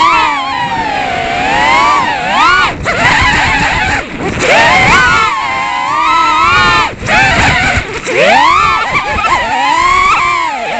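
FPV freestyle drone's brushless motors whining, the pitch swooping up and down again and again as the throttle is punched and cut through spinning tricks, dipping briefly a few times.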